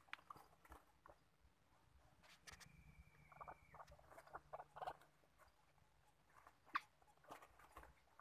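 Faint scattered rustling and ticking in dry leaf litter as white-breasted waterhens move about a wire trap cage, with one sharper click about seven seconds in. A faint thin steady tone sounds briefly around three seconds in.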